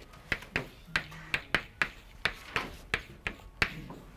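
Chalk writing on a blackboard: a quick, irregular run of about a dozen sharp taps and clicks as the chalk strikes and scrapes out letters and symbols.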